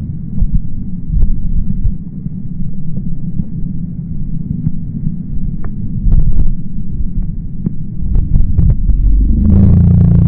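Loud, continuous low rumbling noise with scattered sharp clicks and taps. About nine and a half seconds in, a steady low hum with a definite pitch joins, along with a louder rush of noise.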